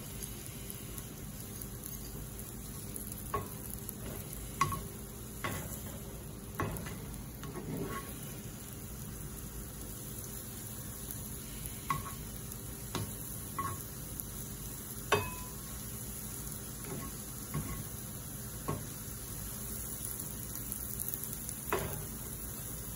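Lion's mane mushrooms sizzling in butter and oil in a nonstick frying pan, a steady frying hiss. A spatula knocks and scrapes against the pan now and then, giving short sharp clicks at irregular times.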